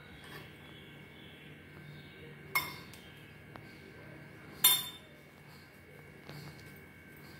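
A metal spoon clinks twice against a glass bowl while scooping paneer filling, a sharp clink about two and a half seconds in and a louder one a couple of seconds later.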